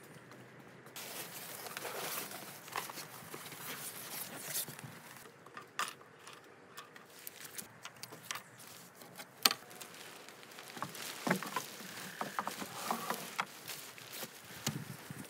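Handling sounds of a pop-up tent being packed up on wooden deck boards: irregular clicks and knocks as spiral deck pegs are pulled from the deck, and rustling as the tent fabric and pole joints are folded. The loudest is a single sharp click a little past halfway.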